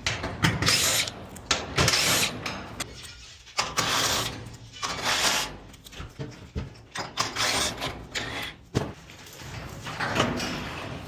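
7/16-inch socket on a ratchet wrench turning off bolts, ratcheting in repeated short bursts with metal clicks and clanks.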